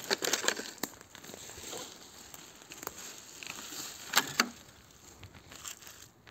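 Scattered crackling and rustling of handling and footsteps on dry forest litter, with a louder rustle of a black plastic rubbish bag about four seconds in as litter is put into it.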